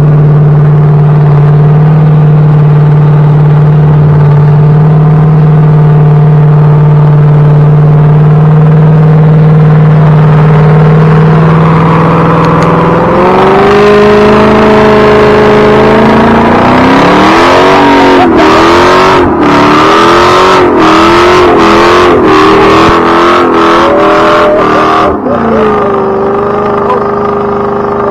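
Chrysler 300's engine and spinning rear tyre in a burnout: the engine holds one steady high note, then about halfway through the revs climb and swing up and down, with several brief dips in the sound over the last third.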